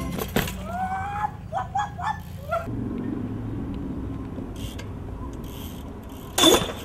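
A BMX bike landing hard on concrete near the end: one sharp, loud smack, the loudest sound here. A steady low traffic-like rumble runs underneath, and a few short rising chirps come in the first couple of seconds.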